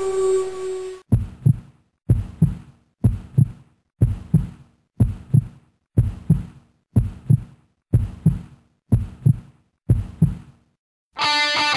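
Heartbeat sound effect: about ten slow double thumps, lub-dub, roughly one a second, after a held tone fades out in the first second. Electric-guitar rock music starts near the end.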